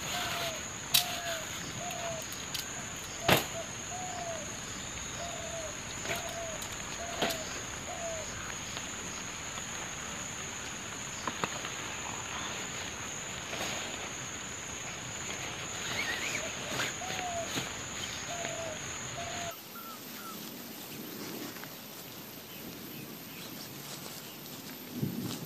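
Jungle ambience: a bird repeats a short low call about every two-thirds of a second over a steady high insect drone, with a few sharp strikes of a blade chopping undergrowth in the first several seconds. The background changes abruptly about three-quarters of the way through.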